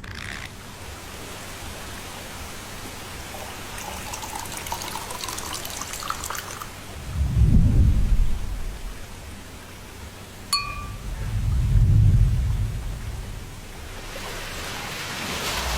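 Layered film sound effects over a steady rain-like ambient hiss: two deep, windy whooshes swell and fade in the middle, a short bright ping sounds between them, and a rising rush of noise builds near the end.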